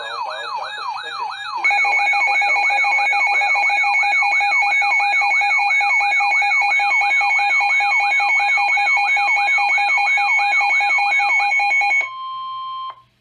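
Electronic emergency alert tones between weather-radio warning messages. A fast warbling siren sweeps up and down about three times a second, joined about one and a half seconds in by a loud steady two-note alert tone. Both cut off about a second before the end, leaving a single steady tone briefly.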